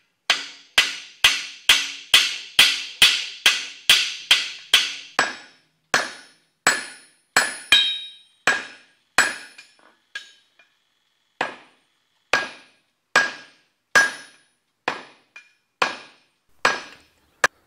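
Blacksmith's hammer striking hot steel on an anvil, each blow with a short metallic ring. The blows come about two a second for the first few seconds, then slow to an uneven pace with a brief pause midway.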